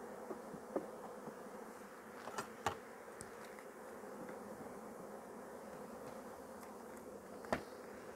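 Steady buzzing hum of a large mass of honeybees shaken out onto a sheet in front of a hive to make an artificial swarm. A few sharp knocks from hive frames being handled break in, the loudest about seven and a half seconds in.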